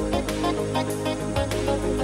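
Music: an instrumental stretch of a pop song between sung lines, with held chords and occasional drum hits.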